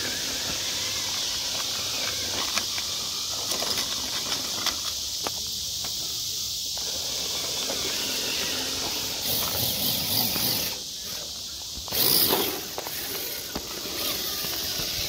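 Steady, high-pitched chorus of night insects, with scattered faint clicks and a brief louder noise about twelve seconds in.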